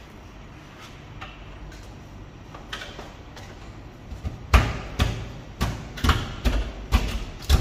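Hotel room door's lever handle and latch being worked: after a few quiet seconds, a run of about seven sharp clacks, roughly two a second.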